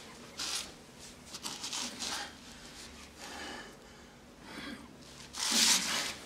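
A man breathing hard in short gasps, with one louder, longer gasp near the end.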